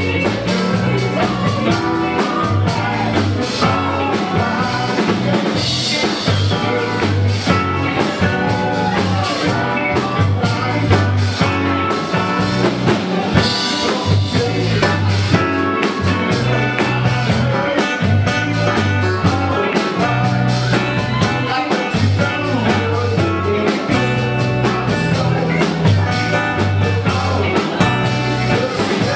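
A rock cover band playing a blues/rock-and-roll style number with drum kit, electric guitar and bass guitar, the bass line walking steadily underneath.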